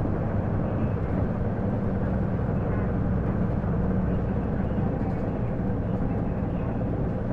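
Isuzu Erga (PJ-LV234L1) city bus running, its diesel engine and road noise heard steadily from inside the passenger cabin.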